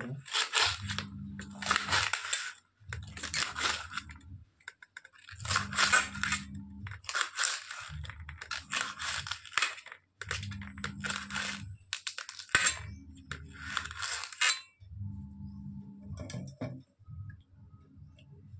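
Kitchen knife chopping through a bundle of fresh green beans against a steel plate: a run of crisp crunching cuts, about one every second or so, that stop about three-quarters of the way through.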